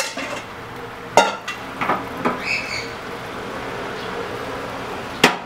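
Beaten egg with corn frying in an oiled pan, a soft steady hiss that swells a little in the middle, broken by several sharp clicks and knocks of kitchenware, the loudest near the end.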